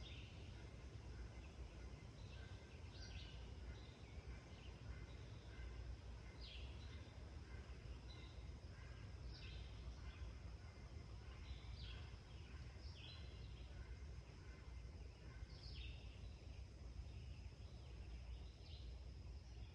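Faint dawn farm ambience: distant songbirds give short, high chirping calls every second or so over a steady low background rumble.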